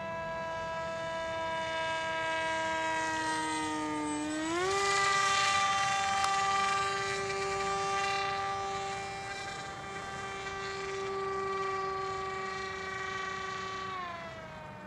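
Radio-controlled model airplane's motor and propeller droning overhead at a steady pitch. The pitch sags slightly, rises sharply about four seconds in as the throttle is opened, holds, and falls again near the end as the throttle is eased back.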